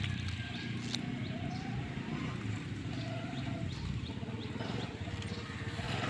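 Outdoor ambience: a steady low rumble with rapid flutter, and over it faint, short, high rising chirps about twice a second.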